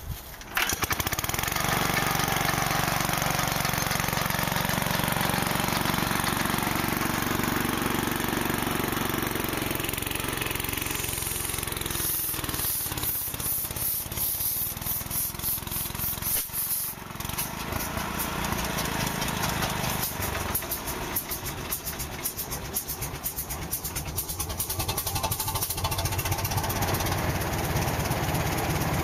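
A small pony starting engine catches about half a second in and runs steadily, cranking a large vintage diesel engine. Past the middle the sound changes, dipping briefly, and then runs on with a more pulsing beat as the big engine comes to life.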